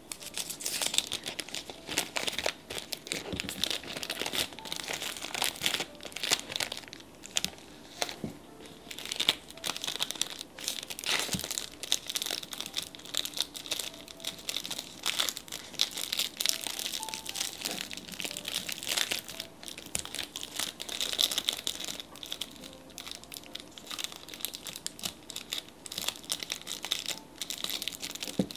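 Plastic packaging crinkling and rustling as it is handled, a steady stream of sharp crackles throughout.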